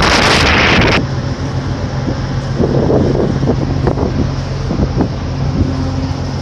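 Wind buffeting the microphone at the ferry's rail, cutting off suddenly about a second in. It leaves the ship's engines droning steadily in a low hum, with a few faint knocks.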